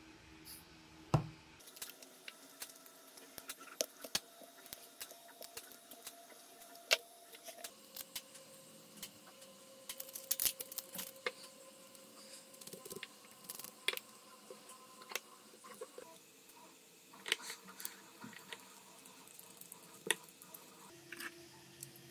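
Irregular small clicks and taps of 3D-printed plastic parts, screws and toy wheels being handled and fitted together by hand. A sharper click comes about a second in and another about seven seconds in.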